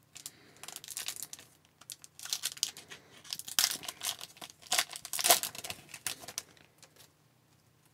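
Foil wrapper of an Upper Deck hockey card pack crinkling and tearing as it is ripped open by hand, in a run of irregular crackly bursts, the loudest about four to five seconds in.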